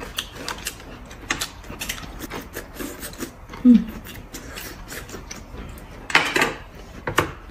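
Rustling and crackling of bamboo shoot husks being peeled off by hand, with scattered small clicks. A brief hummed 'mm' comes just before 4 s, and a louder rustle about 6 s in.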